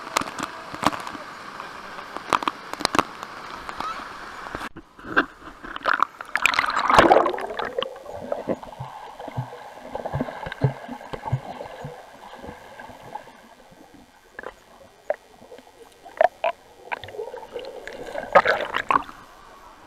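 Waterfall water rushing and spattering right on the camera's microphone. About five seconds in, the sound changes abruptly as the camera goes underwater: muffled gurgling and bubbling with scattered knocks and splashes, louder for a moment near the end.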